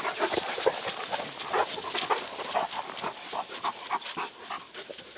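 Tracking dogs giving short whines and yips, over scattered rustling and crackling in dry grass and brush.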